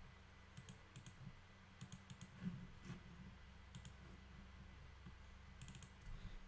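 Faint, scattered clicks from a computer mouse and keyboard, some coming in quick pairs, over a low steady hum.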